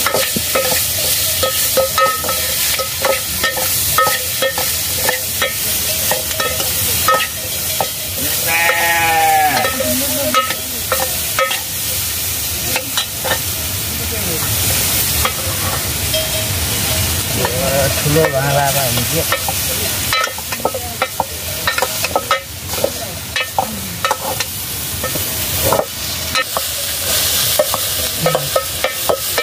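A metal ladle stirring and scraping a pot of potato curry cooking over a wood fire: frequent clinks and knocks against the pot over a steady sizzle. Twice, about 9 and 18 seconds in, a short wavering call sounds.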